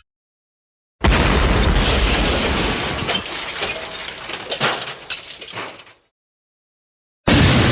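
Cinematic explosion sound effect: a sudden blast about a second in, with a deep rumble that dies away over about five seconds, crackling and clicking as debris falls through the tail. A second blast starts suddenly near the end.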